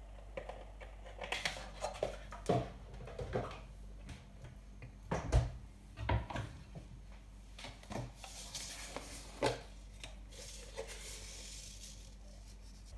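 Kitchen handling sounds: scattered knocks and clicks as a milk carton is poured over beaten eggs in a plate and put down, the sharpest knocks about five and six seconds in, with a stretch of soft rustling a little past the middle.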